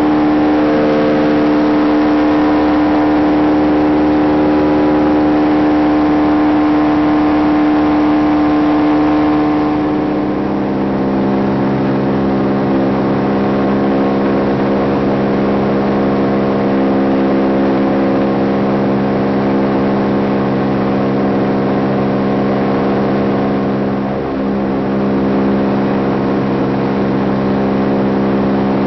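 Kolb Mark III Xtra light aircraft's pusher engine and propeller droning steadily in flight, with wind rush. About a third of the way through, the engine note drops to a lower pitch and holds there, with a brief dip in level near the end.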